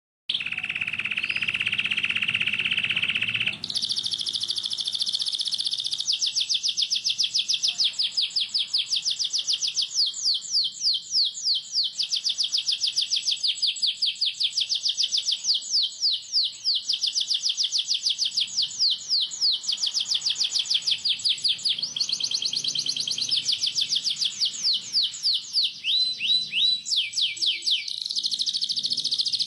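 Domestic canary singing in full song: a steady held note for the first few seconds, then a long unbroken run of rapid, tightly rolled trills, with a few slower downward-sliding chirps near the end.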